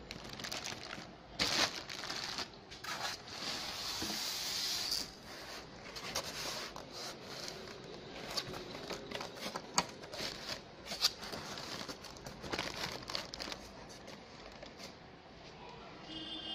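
Clear plastic wrapping crinkling and rustling as it is handled, with scattered sharp crackles and a longer hissing rustle a few seconds in.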